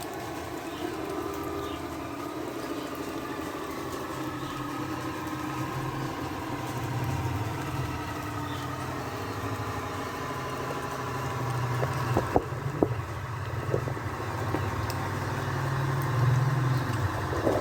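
Radio-controlled model construction vehicle running with a steady engine-like drone, with a few sharp clicks about twelve seconds in.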